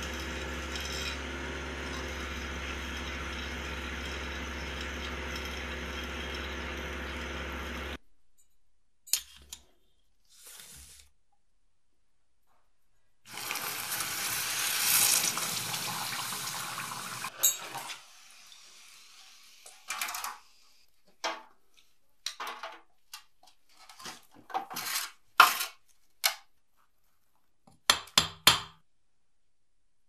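A steady machine hum with a low drone while molten metal is poured into a casting flask; it cuts off about eight seconds in. Later the hot casting flask hisses and bubbles for about four seconds as it is plunged into water to cool, followed by a scatter of sharp knocks and clinks.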